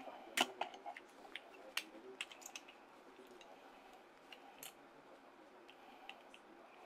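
ARCHECORE Black Wolf Freki transformable figure clicking and snapping as its parts are pulled apart and repositioned by hand, a quick run of small clicks in the first couple of seconds, then a few scattered ones.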